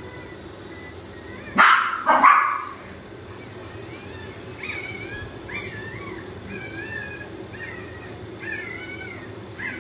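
A dog barks twice, loud and sharp, about half a second apart; from about halfway through, a Chihuahua puppy whimpers in a string of short, high, wavering squeaks.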